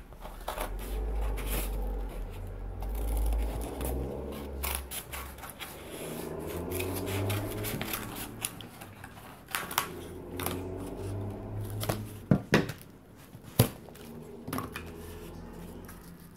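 Scissors cutting through corrugated cardboard: a scattered series of sharp snips and crunches, with a cluster of sharper snips about three quarters of the way in, over a low rumble.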